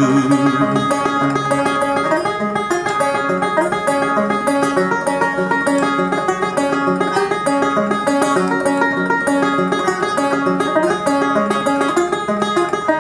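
Solo banjo instrumental break: a steady run of plucked notes over a repeating pattern of low notes.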